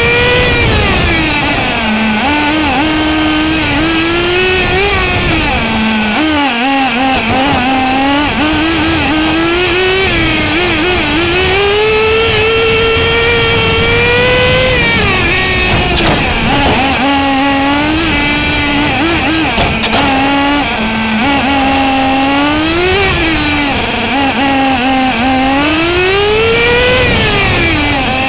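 Small nitro engine of a Bycmo RC car heard from a camera mounted on the car, revving up repeatedly as it accelerates and dropping back off the throttle, with short steady lower stretches in between.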